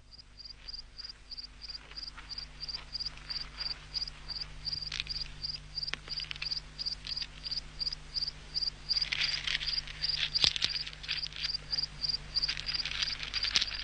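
A cricket chirping steadily, about three short high chirps a second, over a low steady hum. Bursts of clicking and rustling come about nine seconds in and again near the end.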